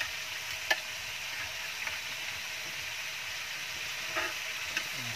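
Chicken pieces sizzling steadily in a non-stick pan over a wood fire as they brown. A few sharp clicks of metal tongs against the pan come through the sizzle; the loudest is about a second in.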